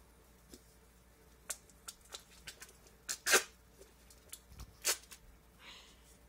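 Black duct tape being pulled off the roll and wrapped around a homemade tool, with two short rips of tape about three and five seconds in among small handling clicks.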